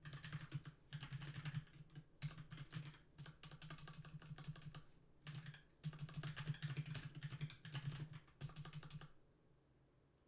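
Typing on a computer keyboard: quick runs of keystrokes in several bursts with short pauses between them, stopping about nine seconds in.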